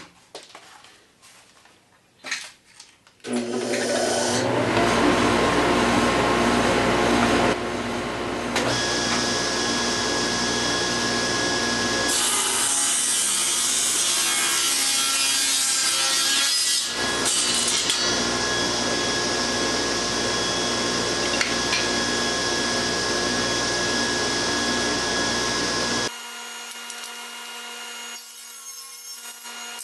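Table saw with a Freud Diablo blade starting up about three seconds in and ripping 3/4-inch pallet-wood boards lengthwise down the middle. The motor runs steadily for over twenty seconds under the cuts. The sound drops sharply to a quieter steady hum near the end.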